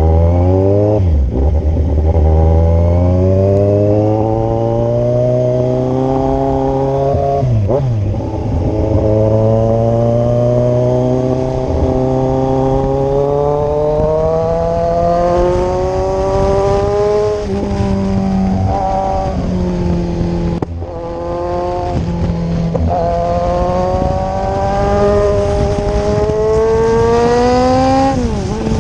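Kawasaki Z1000 inline-four motorcycle engine pulling hard under acceleration. Its pitch climbs steadily through each gear and drops at each upshift, about five times.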